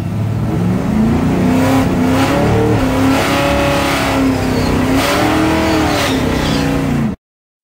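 Small-block Ford 302 V8 of a Fox-body Mustang drag car, heard from inside the cabin, revving up and held at high revs for several seconds, then easing off. It cuts off suddenly about seven seconds in.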